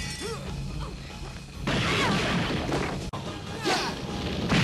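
Kung fu film fight sound effects over the musical score: blows and swishes, with a louder crash about two seconds in.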